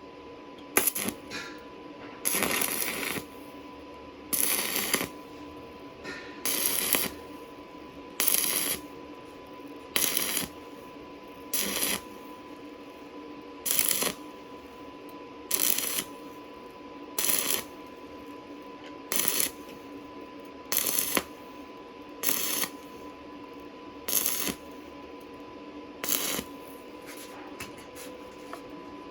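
Stick-welding arc on thin 0.8 mm square steel tube, crackling in short bursts of under a second, about one every two seconds, as the arc is struck and broken again and again to stitch the joint. A steady electrical hum runs underneath.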